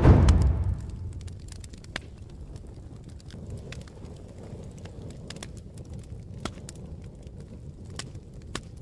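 A loud music cue dies away within the first second. After it comes a steady low rumble with scattered sharp crackles and pops.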